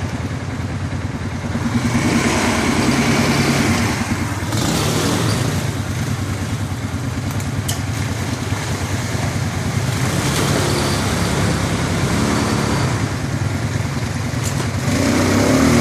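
ATV (quad bike) engines running continuously, the engine note swelling louder a few times and loudest near the end.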